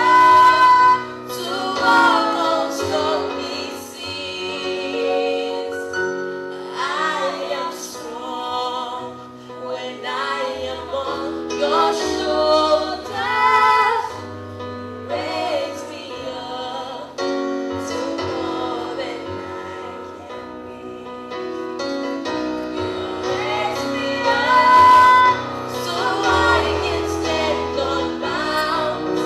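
A hymn sung by a woman's voice with other voices, over sustained keyboard chords and bass notes.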